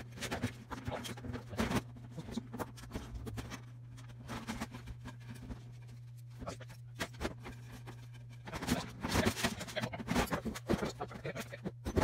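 Scattered clicks, knocks and clatter of metal and plastic parts being handled as a scrapped microwave oven is taken apart, busiest near the start and again in the last few seconds, over a steady low hum.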